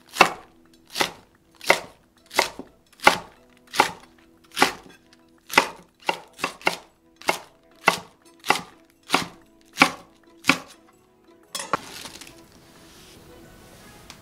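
Chef's knife slicing inner napa cabbage leaves on a wooden cutting board: about sixteen crisp chops, a little over one a second, stopping about ten and a half seconds in, after which a faint hiss remains.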